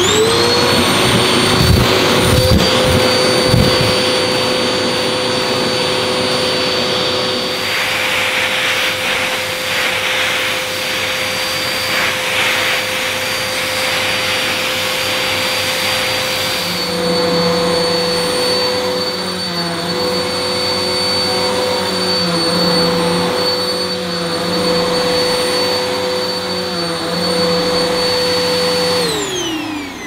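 Samsung Quiet Jet 1300 W bagged upright vacuum cleaner switching on and running loud, with a steady high whine over the motor hum, while it sucks up dirt through its hose. A few knocks come in the first few seconds, the pitch wavers slightly in the second half, and the whine falls away as it is switched off near the end.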